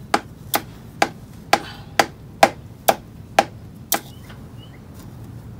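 Sharp knocks, evenly spaced about two a second, nine in a row, stopping about four seconds in.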